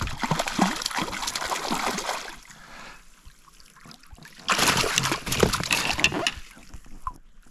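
Water splashing as a small hooked trout thrashes at the surface and is scooped into a landing net, in two bouts: one at the start lasting about two seconds, and a second from about four and a half seconds in.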